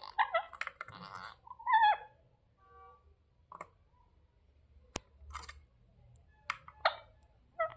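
Indian ringneck parrot making short calls that fall in pitch, twice in the first two seconds, then a brief buzzy note and scattered sharp clicks and short high chirps, the loudest click about five seconds in.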